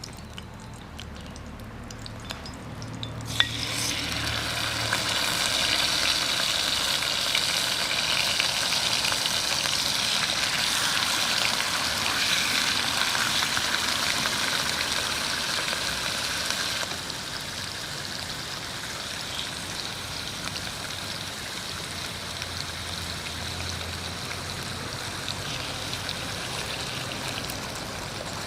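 Jingisukan lamb frying. A click about three seconds in, then a loud, dense sizzle that builds up, holds, and drops to a softer steady sizzle a little past the middle.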